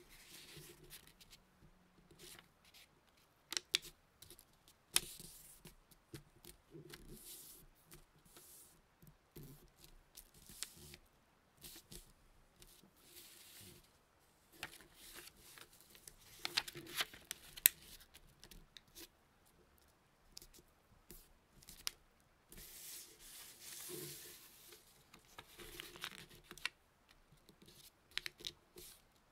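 Massage-roleplay sounds made by hand close to the microphone: crisp rustling and scratching in irregular strokes, with a few sharp clicks.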